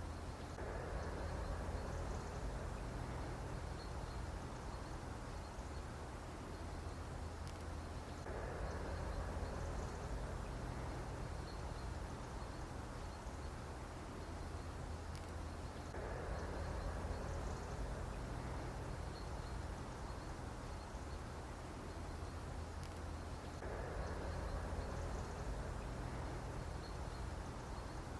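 Mosquito buzzing as a steady, low-level drone that swells about every seven to eight seconds, as if the recording is looping.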